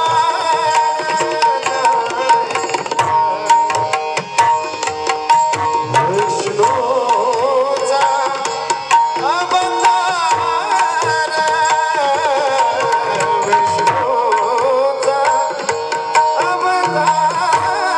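Marathi devotional bhajan music: a wavering melody over steady held notes, with dense Indian hand-drum strokes.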